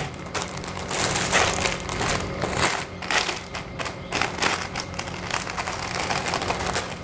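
Thin clear plastic polybag crinkling and rustling in irregular bursts as a folded cotton T-shirt is slid out of it by hand.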